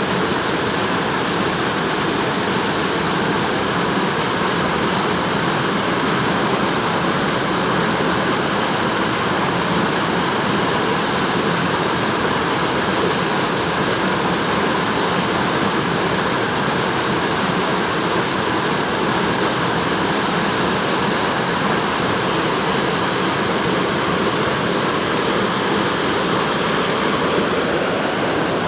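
Water rushing steadily through a rocky canyon, a constant loud wash of noise with no change.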